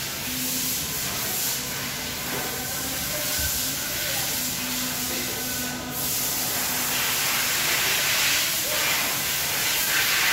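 Steady hissing background noise with a faint low hum underneath.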